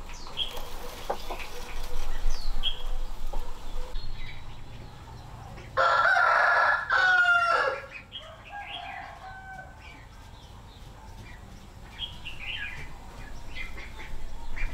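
A rooster crows once, a loud call of about two seconds that falls in pitch at the end, starting about six seconds in. Scattered chicken clucks and chirps come before and after it.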